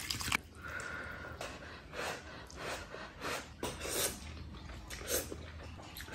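Instant noodles being slurped off chopsticks: a run of short sucking slurps, each a second or less apart. A brief clatter of chopsticks against the bowl opens it.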